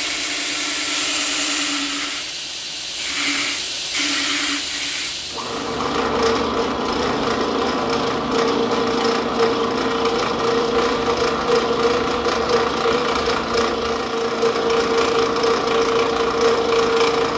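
Belt grinder grinding a steel blank of 80CrV2, a steady hissing grind that eases off briefly a few times. About five seconds in it changes abruptly to a drill press drilling holes through the steel handle section: a steady motor tone under the scraping of the bit cutting metal.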